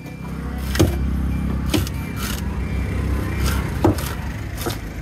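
A motor vehicle's engine running close by, a low steady drone that swells up at the start. Over it come several sharp strikes, a heavy knife chopping into fish on a wooden block.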